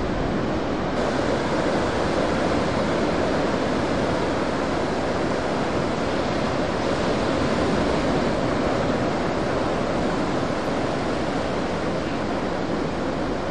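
Heavy ocean surf from a large swell, a steady wash of breaking waves and whitewater with no single crash standing out.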